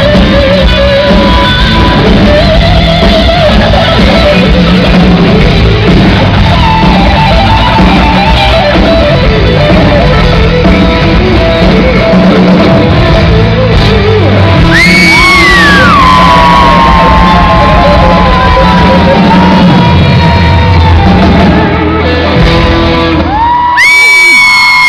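A live rock band plays electric guitar, bass and drums under a male singer in a hall. The singer holds a long note in the second half and ends on a high held note near the end.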